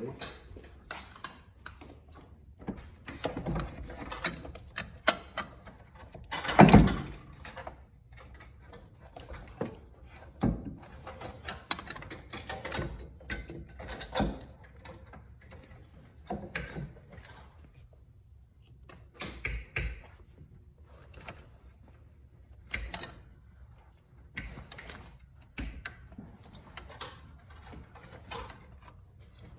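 Irregular metallic clicks, knocks and scrapes of a Corvette ABS pump being handled and fitted onto its mounting bracket, with the loudest knock about seven seconds in.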